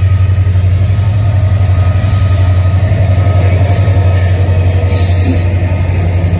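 WDP4D diesel locomotive's EMD two-stroke V16 engine running loud as it passes close by, a deep, rapidly pulsing throb.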